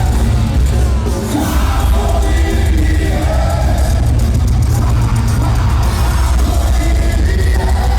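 Live thrash metal band playing loud and distorted, with heavy bass and drums and shouted vocals, heard through a phone recording in a large hall, crowd noise mixed in.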